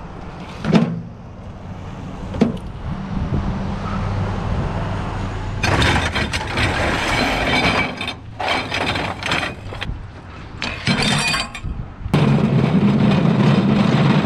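Scrap being handled and thrown down, clattering and crashing: two sharp knocks, then several seconds of continuous crashing, then a steady low hum near the end.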